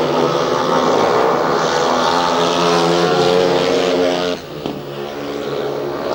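Several speedway bikes' 500cc single-cylinder methanol engines racing at high revs as the riders slide through a bend. About four seconds in the engine sound drops and carries on fainter.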